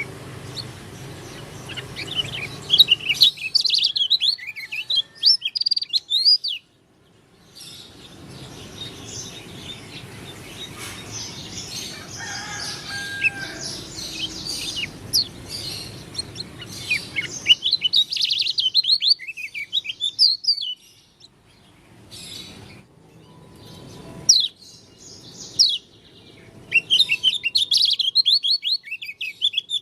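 Pleci dakun Lombok, a white-eye songbird, singing in fast twittering phrases of high chirps, in several runs broken by short pauses. It is an unusual song for this bird.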